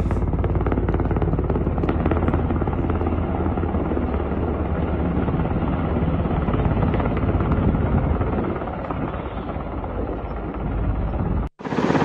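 Black Hawk (UH-60) helicopter flying overhead, its rotor beating in a rapid, steady chop. The sound cuts out for an instant near the end, then the helicopter is heard again in a second, clearer recording.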